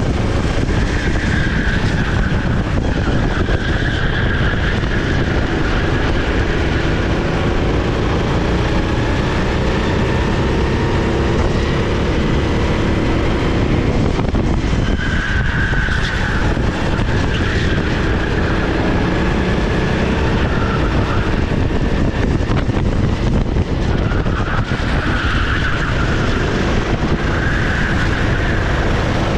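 Sodi SR4 390cc kart's four-stroke engine running hard, its pitch rising and falling as the kart accelerates and slows through the lap, over heavy wind and road noise. Brief higher squeals come now and then, mostly in the second half.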